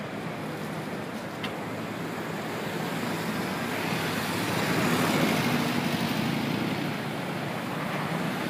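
City street traffic: cars and a truck driving past, a steady rush with engine hum that swells about halfway through and then eases.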